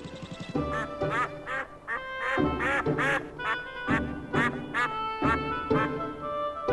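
Cartoon duck quacking again and again in quick runs of short calls, over light background music.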